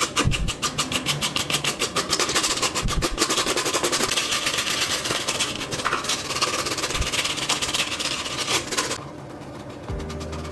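A stiff flat paintbrush scrubbing back and forth across a rough, textured painted surface while drybrushing, a quick, even scratching rhythm that thickens into a steady scratchy hiss and stops about nine seconds in.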